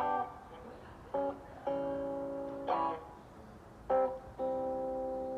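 Background music: guitar chords strummed and left to ring, with no singing.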